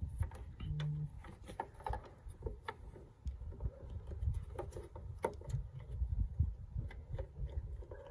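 Hands working a replacement low-beam bulb into the back of a 2017 Ford Escape's headlight housing in a cramped engine bay: irregular small clicks and knocks of plastic parts being handled and pushed, over a low rumble.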